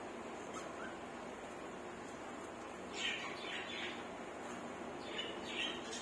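Budgerigars chirping: a quick run of short chirps about halfway through, and another cluster near the end.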